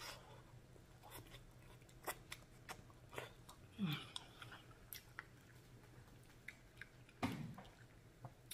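Close-up chewing and mouth sounds of someone eating noodles and rice cakes in black bean sauce: scattered wet clicks and smacks, with a louder smack about seven seconds in.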